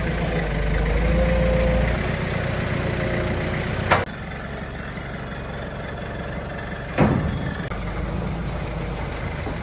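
Heavy vehicle engine idling steadily, with two loud knocks, one about four seconds in and one about seven seconds in.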